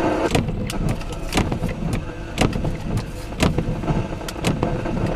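Thunderstorm rain, with irregular sharp taps of drops striking close by, a few a second, over a steady low rumble.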